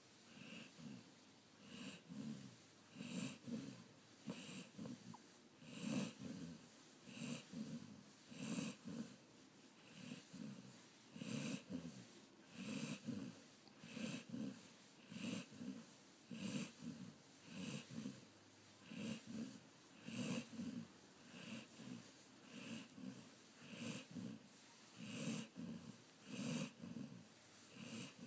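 Golden retriever snoring in its sleep: a regular rhythm of rasping breaths in and out, a little more than one a second, keeping the same pace throughout.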